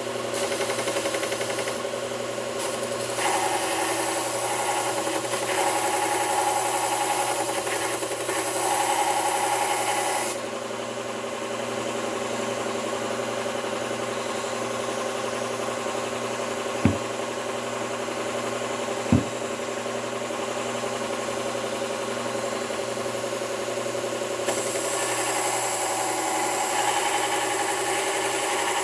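Belt sharpener running with a steady motor hum while a chisel bevel is ground against the abrasive belt, giving a grinding hiss. The hiss comes in two long spells, one at the start and one from a few seconds before the end, and drops away in between, where two sharp clicks are heard.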